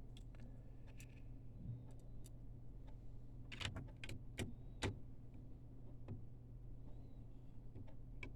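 Scattered light clicks and ticks of small screws and a screwdriver being handled as a printhead is screwed into an Epson L1800 printer's carriage, a cluster of sharper clicks about halfway through, over a steady low hum.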